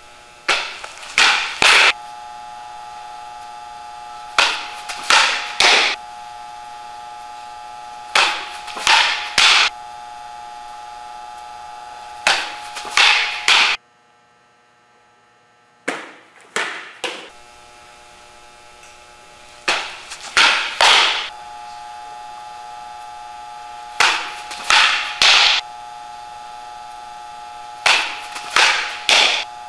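Fastpitch softball pitching practice: a quick cluster of three sharp smacks and swishes about every four seconds, the sound of each windmill pitch ending with the ball popping into the catcher's mitt. A steady electrical hum runs underneath and drops out briefly about halfway through.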